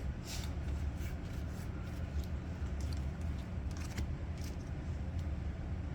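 Trading cards being handled and flipped through, with faint irregular slides and clicks over a low steady hum.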